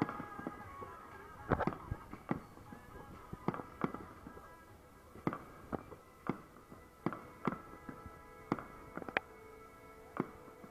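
Aerial firework shells bursting: more than a dozen sharp bangs at uneven intervals, some in quick pairs, the loudest about one and a half seconds in. Faint music with held notes plays underneath, fading after the first second.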